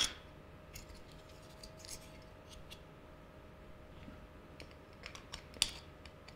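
Light handling sounds from crimped wires and their plastic connector housings on a small circuit board: scattered soft clicks and ticks, with a few sharper clicks about five seconds in, over a faint steady hum.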